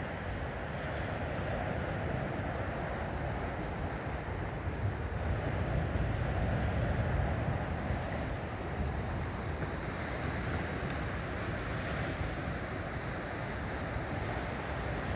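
Ocean surf washing in a steady rush, with wind buffeting the microphone as a low rumble. It swells a little louder about five seconds in, then eases back.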